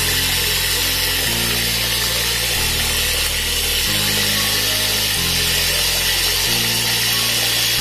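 Mini portable turbine washing machine running submerged in a bucket, its small motor spinning the impeller so that it churns and splashes the water and clothes with a steady, even noise.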